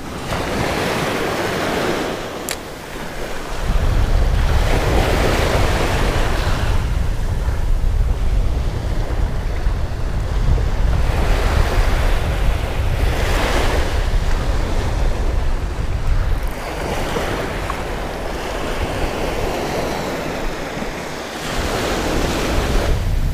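Small surf waves breaking and washing up the sand every few seconds. Wind buffets the microphone with a heavy low rumble from about four seconds in until near the end.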